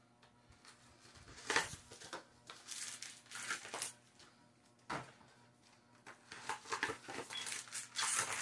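Cardboard Magic: The Gathering collector booster box opened by hand and its foil booster packs slid out: bursts of rustling and scraping, the loudest about a second and a half in and another run near the end.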